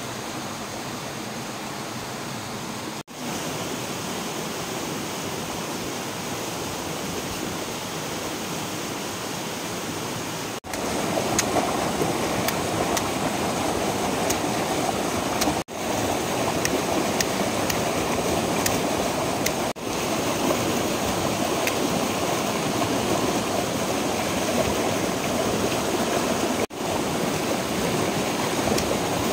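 Fast river rushing over rocks: a steady wash of water noise that grows louder about a third of the way in and drops out for an instant several times at edits. A few faint ticks sound over it in the middle.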